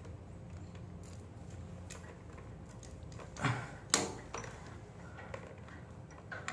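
Two sharp knocks about three and a half and four seconds in, with a few small clicks, from hands-on work assembling an electrical consumer unit, over a low steady hum.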